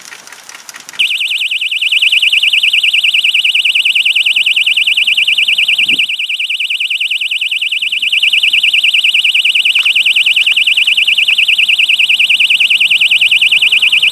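SD-603 bicycle security alarm set off about a second in after a short rattle. It gives a loud, high-pitched electronic tone that warbles rapidly and keeps sounding without a break.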